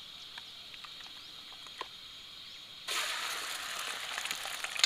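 Beaten egg hitting hot oil in a pan on a portable gas camping stove: quiet at first, then about three seconds in a sudden loud sizzle and crackle starts and keeps going as the egg begins to fry into an omelette.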